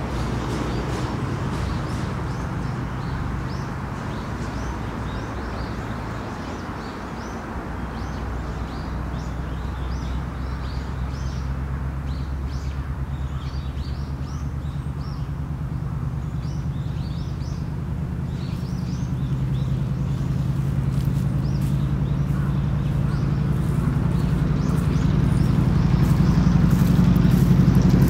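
Outdoor ambience of a low, steady vehicle engine hum that grows louder over the last several seconds, with short high bird chirps scattered through the middle.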